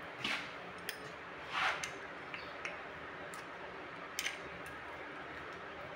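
Faint metallic ticks and light scrapes of a screwdriver and feeler gauge working the rocker-arm adjusting screw on a Kubota V1505 diesel's valve train, setting the valve clearance. Two soft swishes in the first two seconds and a sharper click about four seconds in.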